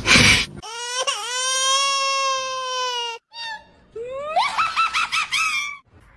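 Cat yowling: one long, drawn-out meow of about two seconds, a short one, then a wavering call that rises at its start.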